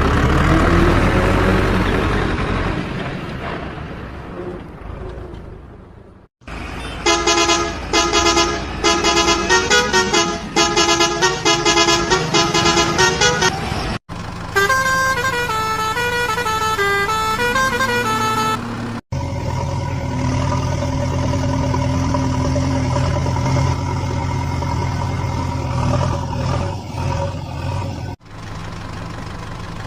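Electronic sound effects of battery-powered toy construction vehicles: rapid rhythmic horn-like beeps, then a short beeping tune, then a steady simulated engine drone, in separate clips with sudden cuts between them.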